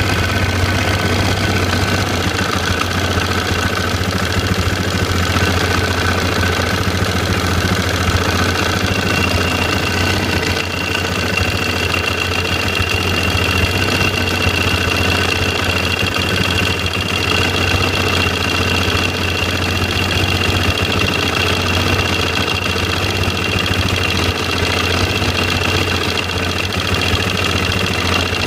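KTM motorcycle engine idling steadily with a fast, continuous ticking rattle, the strange noise in question. A thin, steady high whine joins about a third of the way in.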